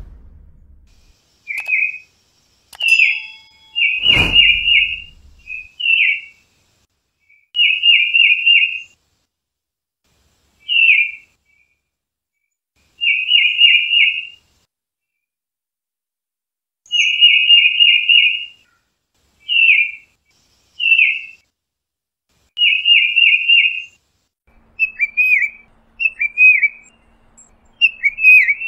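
Tufted titmouse calling: short bursts of rapid, high, whistled notes come again and again with gaps of a second or more, changing near the end to a run of single downward-hooked notes. Two sharp thumps sound, one at the start and one about four seconds in.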